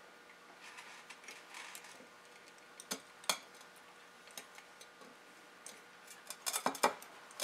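Needle-nose pliers and a brass lamp socket clicking lightly as a wire is wrapped around the socket's terminal screw: a few scattered small metal ticks, with a quick run of clicks near the end.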